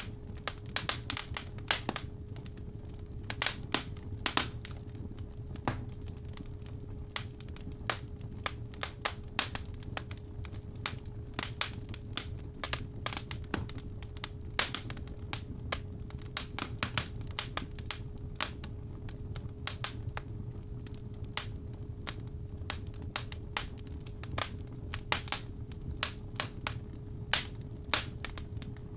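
Fireplace wood fire crackling, with irregular sharp pops over a low steady rumble, and a steady 417 Hz tone held underneath.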